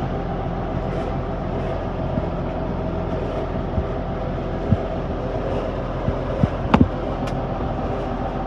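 Diesel engine of harvest machinery running steadily, a constant low drone. A few short knocks come through it, with two sharp clicks close together about two-thirds of the way in.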